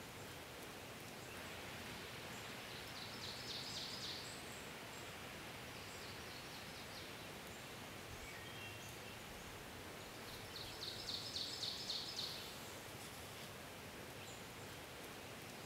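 Steady outdoor background hiss; a bird twice sings a short trill of quick, evenly repeated high notes, about three seconds in and again, louder, around eleven seconds in.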